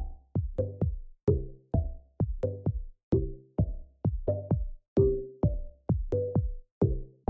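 Electronic background music with a steady drum-machine beat, about two beats a second, over a bass line.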